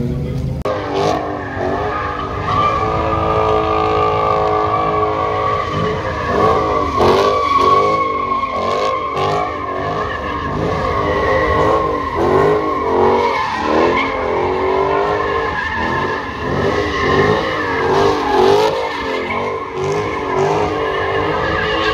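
A car doing donuts on asphalt, its tyres squealing in a steady high screech. The engine is held at high revs for the first few seconds, then revs up and down over and over.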